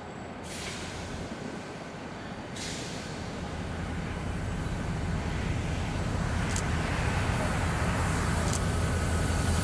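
A trio of EMD GP-series diesel locomotives approaching, their engines' low rumble growing steadily louder, with a couple of sharp clicks in the second half.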